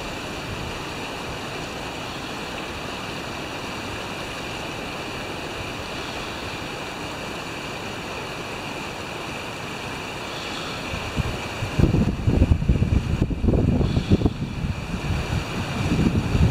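Steady wash of rippling water, then from about twelve seconds in, gusts of wind rumbling on the microphone.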